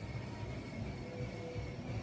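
Background music with a pulsing bass.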